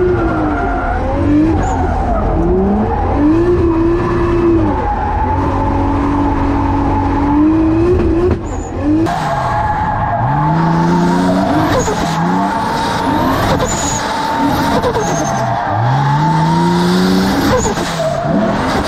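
Drift car's engine revving hard during a drift run, its pitch climbing in repeated sweeps and dropping sharply each time, with tyres skidding and squealing.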